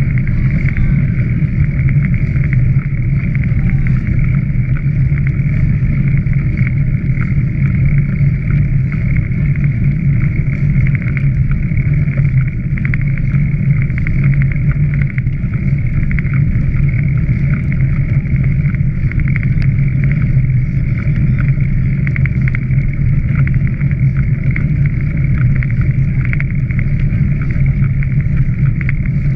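Steady wind rush and rumble on a camera moving fast along a gravel riverside towpath: a constant low drone under a high hiss, with a fine rattle throughout.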